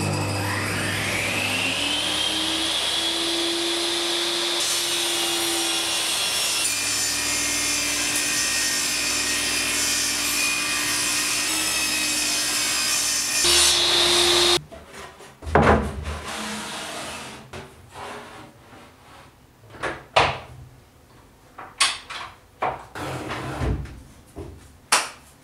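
Makita MLT100 benchtop table saw switched on, its motor and blade spinning up with a rising whine and then running steadily while a pine board is ripped, cutting off abruptly about fourteen seconds in. After it comes a series of sharp knocks and clatters.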